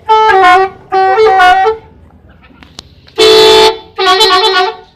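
Bus 'telolet' horn, a set of multi-tone musical air horns, playing short stepped tunes. There are two quick tunes, a pause, a single held chord about three seconds in, then another short tune.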